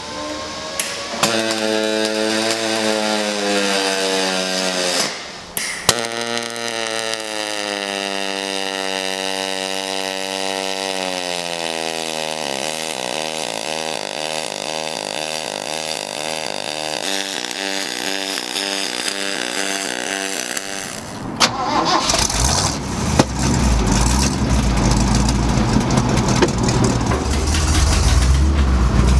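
MIG welding on aluminum plate: a steady buzzing hum that drifts slowly in pitch, broken briefly a couple of times in the first few seconds as the arc stops and restarts. About three-quarters of the way through it gives way suddenly to a dump truck's engine starting and running with a low rumble, which grows louder near the end.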